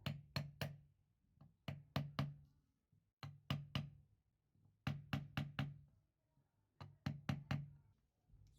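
Repeated sharp knocks, like hammer or mallet taps, in quick runs of three or four at about four a second, five runs in all.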